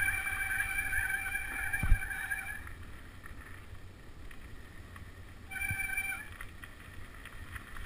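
Tandem mountain bike rolling down a dirt forest trail: tyres rumbling on the ground, with a high steady whine from the bike that stops about two and a half seconds in and comes back briefly near the end. A single thump about two seconds in as the bike hits a bump.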